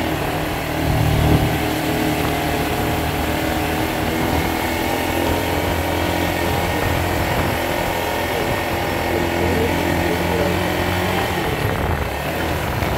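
Motorcycle engine running steadily while riding on a dirt road, with road and wind noise; it swells briefly about a second in.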